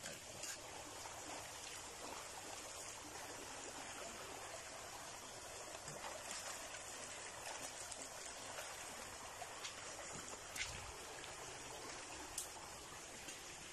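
Shallow creek water flowing over rocks, a faint steady rush, with a few light clicks near the end.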